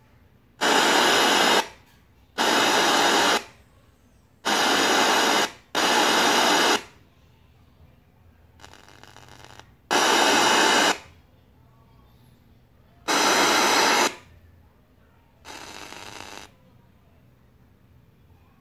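Portable Bluetooth speaker in FM radio mode giving out bursts of radio static, each about a second long and cutting off abruptly, six loud and two fainter, with near quiet between them.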